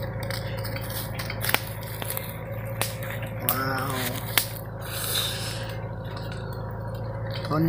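Small handling noises of salt being pinched from a crinkly plastic packet and sprinkled by hand: scattered light clicks and rustles over a steady low hum.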